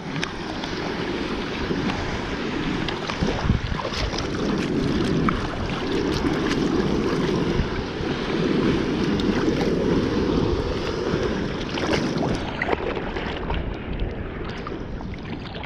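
Sea water sloshing and splashing against a bodyboard right by the microphone, with choppy waves all around and wind buffeting the microphone. A steady wash with small splashes through it.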